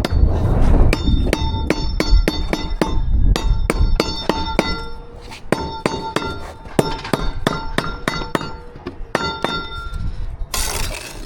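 Hammer blows in quick runs of several strikes with short pauses between, each with a ringing metallic note. A brief scraping rush comes near the end.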